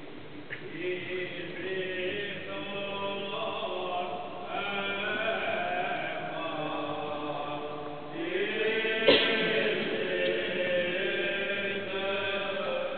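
Liturgical chant: several voices singing in long held notes, with a sharp click about nine seconds in.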